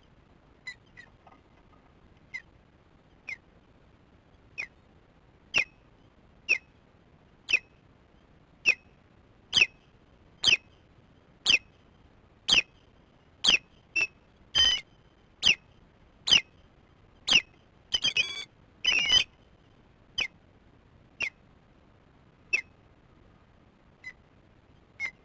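Osprey alarm calls at an intruder: a series of sharp, high whistled calls about one a second, growing louder toward the middle, where a few longer, drawn-out calls break in, then easing off and thinning out near the end.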